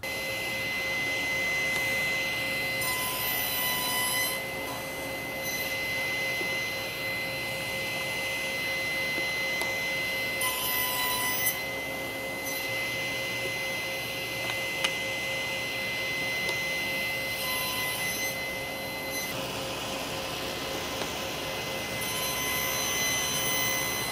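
SawStop table saw running with a steady whine, cutting shallow stepped grooves into the sides of a small white oak panel block held in a toggle-clamp jig. The sound changes briefly about four times, roughly every seven seconds, as each side passes over the blade.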